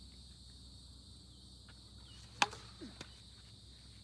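A single sharp crack of a plastic Wiffle bat hitting the ball, about two and a half seconds in, followed by a couple of faint ticks. A faint steady high hum runs underneath.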